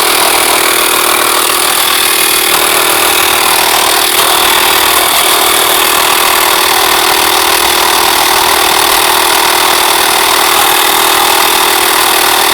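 Small 12-volt tyre compressor, powered from a van battery, running steadily while it inflates a motorcycle tyre.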